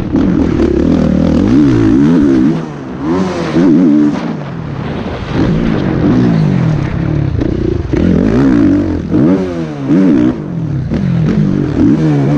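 Motocross bike's four-stroke engine revving hard and falling again over and over as the rider works the throttle and shifts around the track, with short dips where the throttle is chopped, heard from the onboard camera with wind and dirt noise.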